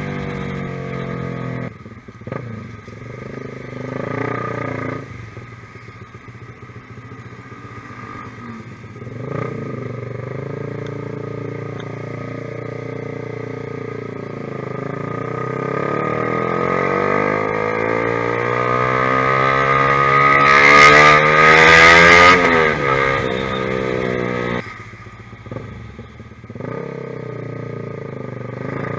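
Honda CBR150R single-cylinder engine running through an aftermarket ProLiner TR1-R exhaust, its revs rising and falling. There are short drops off throttle near the start, then a long climb in pitch that peaks about three-quarters of the way through and falls away again.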